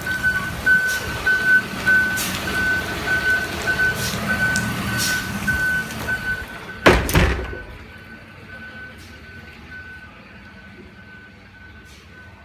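An electronic beeper sounding a single high tone about twice a second, over loud clattering activity. A heavy thunk about seven seconds in is the loudest moment; after it the background drops away and the beeping goes on alone.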